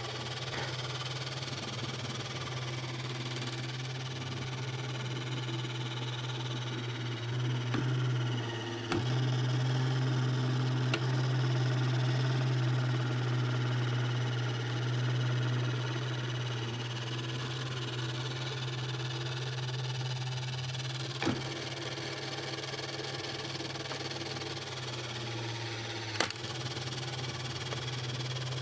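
Radio Shack Robotic Banker toy robot arm running through its coin-fetching cycle: its small electric motor and gears whir steadily, louder for several seconds in the middle, with a few sharp clicks along the way.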